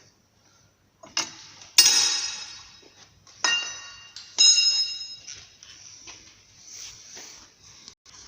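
Metal tools or parts clanking against metal: four sharp strikes that each ring on briefly, the loudest about two seconds in, with lighter clinks and handling noise between them.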